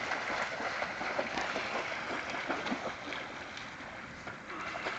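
Water splashing and churning as a dog plunges into a lake and swims out, with choppy splashes that ease off about three seconds in.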